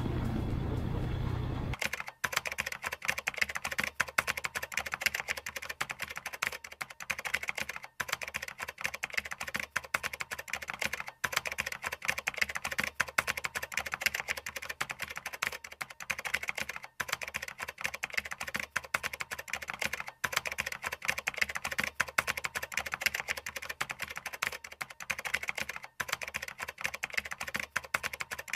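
Rapid computer keyboard typing clicks, a typing sound effect accompanying on-screen text. It starts suddenly about two seconds in and breaks off briefly every few seconds.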